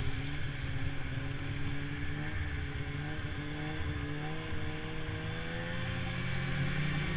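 Snowmobile engine running at a steady trail speed, its pitch drifting slightly up and down, over a constant low rumble and rushing noise.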